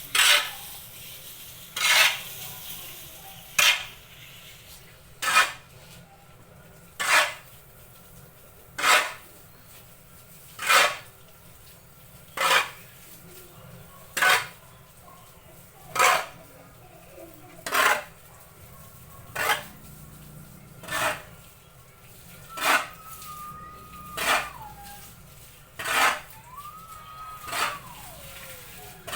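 A metal tool scraping and clinking in a steady rhythm, about one stroke every 1.8 seconds, while the sawdust substrate for mushroom growing is being mixed. Faint falling whistle-like tones are heard twice near the end.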